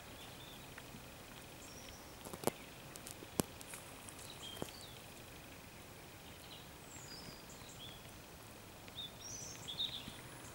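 Faint outdoor ambience with scattered short bird chirps, busiest near the end, over a faint steady high tone. Three sharp clicks fall about two and a half, three and a half and four and a half seconds in.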